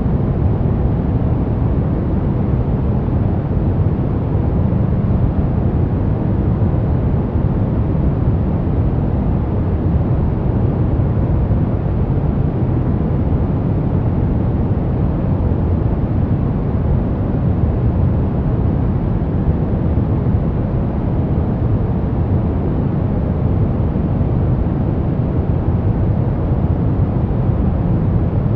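Steady white noise for baby sleep, an even, unbroken hiss weighted heavily toward the low end so it comes across as a deep rushing rumble rather than a bright hiss.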